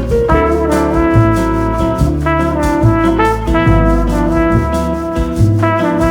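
Instrumental bossa nova music, with a brass melody over a bass line and a light, steady beat.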